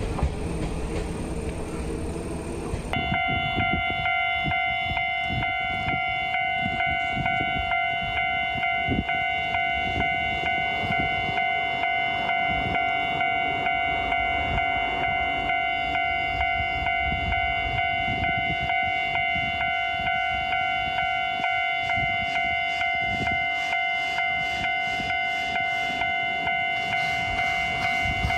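A train rumbles past for the first few seconds. Then a Japanese railway level-crossing warning bell rings on its own, a steady electronic 'kan-kan' at about two strikes a second.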